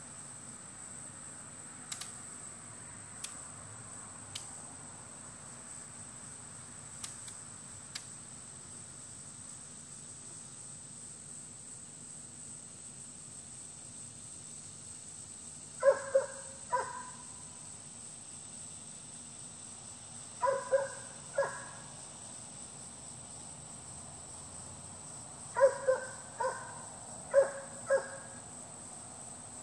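A dog barking in three short bouts of two to four barks each, in the second half, over a steady high-pitched insect hum.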